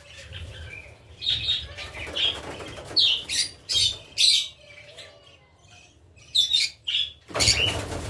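Cockatiels in an aviary giving short, sharp chirping calls, with wings flapping loudly near the end as a bird takes off from its perch.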